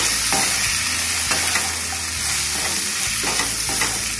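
Cubed potatoes and sliced pointed gourd (parwal) being stirred with a wooden spatula in a kadhai, sizzling in hot oil. The spatula strokes scrape the pan every second or so.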